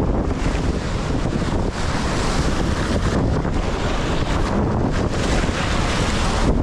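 Rough ocean surf washing and breaking over sea rocks, with heavy wind buffeting the microphone.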